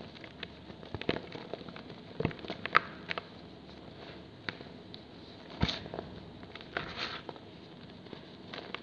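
Dry cast cement blocks crumbling in the hands into loose cement powder: irregular gritty crunches and crackles, with a few louder cracks as pieces break off, the loudest about two and a half seconds in and again just past halfway.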